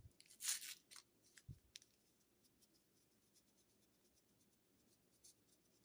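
Mostly near silence: a brief rustling swish about half a second in, a soft thud, then faint scattered ticks, as sugar is added to a bowl of instant ramen.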